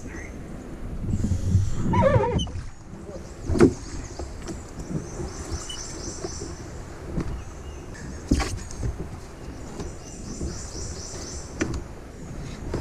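Canoe being paddled: water swishing and sloshing along the hull, with a few sharp knocks of the paddle against the canoe, the loudest about three and a half and eight seconds in. A short wavering voice-like sound comes about two seconds in.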